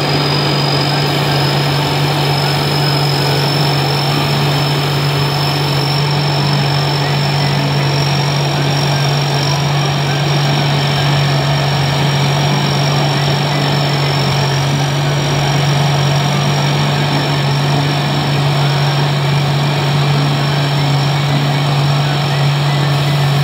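Tracked rice combine harvester's engine and threshing machinery running steadily under load as it creeps through lodged rice. A loud, even low hum with a thin high whine above it.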